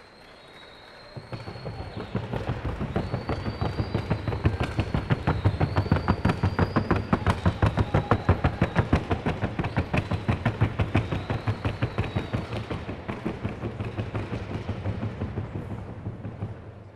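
A gaited horse's hooves beating the ground in the rapid, even rhythm of the trocha colombiana gait. The hoofbeats grow louder about a second in, hold, and fade near the end.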